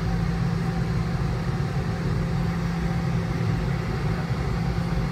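Cabin noise of a Boeing 717 taxiing with its Rolls-Royce BR715 turbofans at idle, before the takeoff spool-up: a steady low hum with an even rush of air above it.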